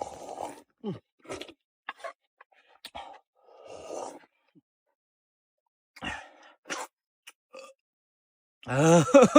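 A person eating noodles: short, irregular slurps and mouth noises with pauses between them.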